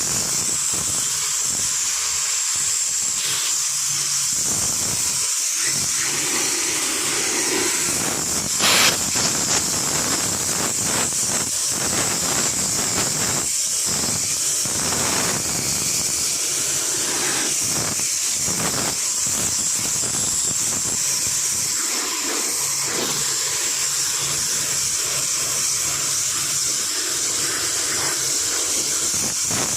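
Steady high hiss of a pressurised jet used in air conditioner servicing, with a brief louder crackle about nine seconds in.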